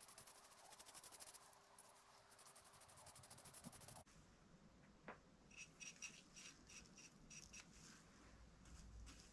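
Faint scratching of a paintbrush's bristles stroking paint onto the metal body of a bench vice, quick even strokes at first, then slower, uneven ones after an abrupt change about four seconds in.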